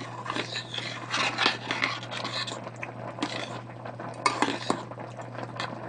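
A spoon stirring and scraping porridge in a metal pot, with irregular scrapes and clinks against the pot, over a steady low hum.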